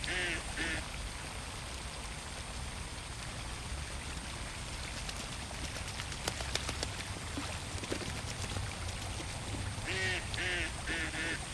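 Ducks quacking: a quick series of quacks right at the start and another series near the end, over a steady low background rumble. A few faint clicks fall in between.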